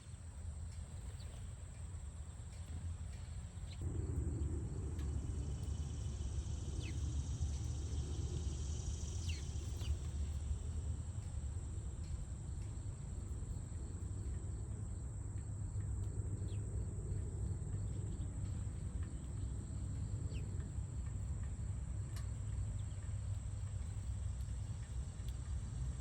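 Garden birds giving scattered short, falling chirps over a steady high-pitched insect drone. A low rumble, the loudest part, steps up about four seconds in.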